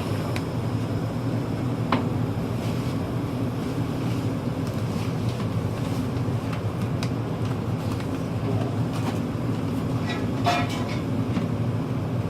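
Steady low rumble of gas water heaters firing, with a few light clicks and a sharper metallic clack about ten and a half seconds in.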